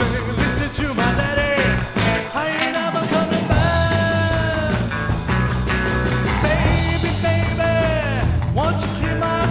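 Rockabilly band playing: electric guitar lines over bass and drums. The bass drops out briefly about two seconds in.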